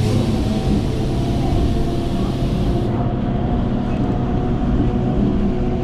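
Electric suburban train pulling out of the station at low speed, heard from its open doorway: a steady rumble with a hum of several even tones from the running gear and motors. A hiss in the upper range stops about three seconds in.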